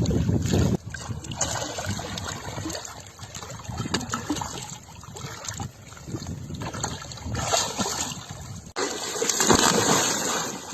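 Water trickling and splashing, uneven, with sudden changes that sound like cuts between shots.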